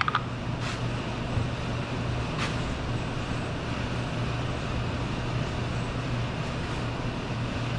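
Steady mechanical background hum, like a fan or ventilation unit running, with a few faint light clicks in the first few seconds.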